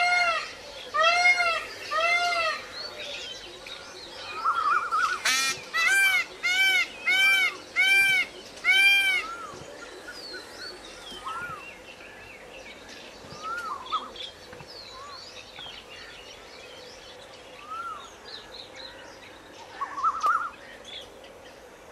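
Indian peacock calling: a series of loud, arched, nasal calls repeated about every half second to second, in two bouts split by a harsh rasping note about five seconds in. Fainter, scattered short calls follow for the rest of the time.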